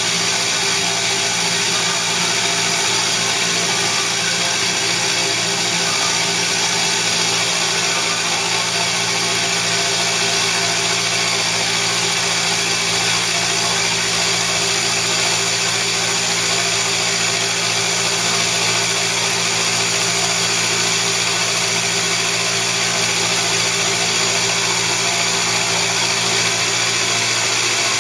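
PM-30 milling machine's spindle running while a carbide four-flute end mill cuts dry through the cast iron slide, a steady cutting noise with no let-up.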